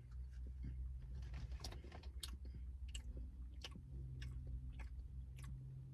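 Faint chewing of a soft, sugar-dusted mini donut filled with red bean paste, with scattered small mouth clicks over a low steady hum.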